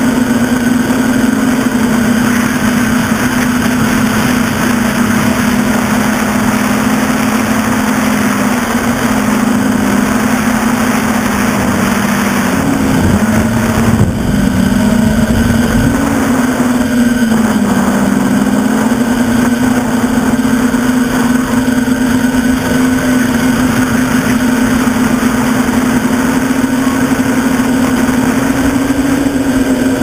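NL-650 quadcopter's motors and propellers droning steadily at one pitch, heard close up from the camera on the craft. The pitch dips and wavers briefly around the middle as the quad manoeuvres, then settles again.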